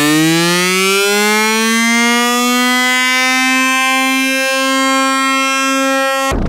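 Dance-track music: a single electronic tone glides up in pitch and then holds steady for several seconds. Just before the end it cuts off abruptly as the beat comes back in.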